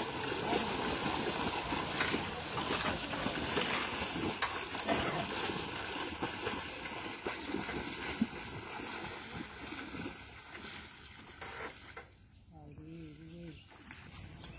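Water splashing and sloshing as several men wade through a flooded paddy field, dragging a fishing net through the muddy water; the splashing thins out and fades after about ten seconds.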